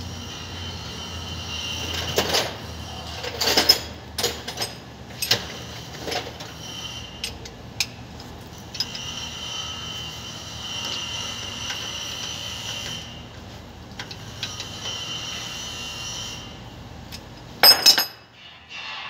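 Metal tools clinking and knocking at a bus's rear wheel hub and brake drum during brake shoe work: a string of sharp knocks, a steady higher hiss in the middle, and a loud double clank near the end.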